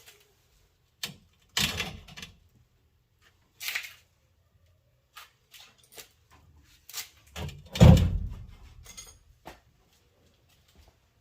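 Metal clunks and knocks as a truck's rear axle and leaf springs are shifted to seat the axle on the spring centre pins. The loudest is a heavy, deep thud with a short ring-out about eight seconds in.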